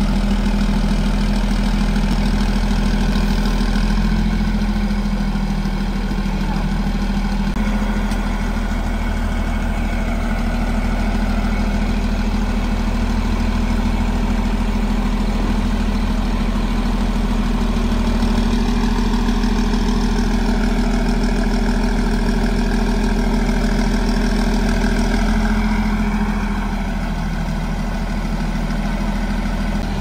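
Diesel engine of a Cat D6R XL crawler bulldozer running steadily at idle, a little quieter near the end.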